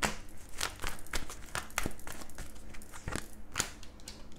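Tarot cards being handled: a run of crisp snaps and rustles, about seven of them at uneven spacing, as cards are shuffled and pulled from the deck.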